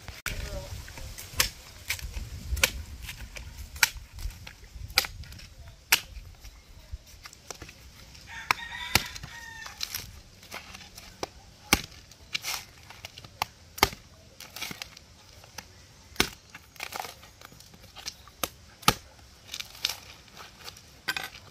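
Sharp chopping strikes on a coconut as its husk is cut away, landing irregularly about once a second. A rooster crows once, briefly, about eight and a half seconds in.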